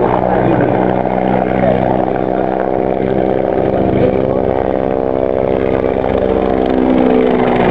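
Bell 412 twin-turboshaft helicopter flying past: a steady buzzing drone of rotor and turbines, its pitch falling slightly near the end.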